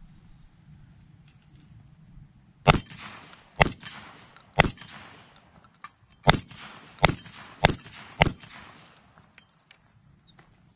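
Black Aces Tactical SMAX semi-automatic 12-gauge shotgun firing seven shots of light birdshot, each followed by a short echo. The first three come about a second apart, then there is a pause of nearly two seconds, then four quicker shots. The gun cycles every round without a malfunction.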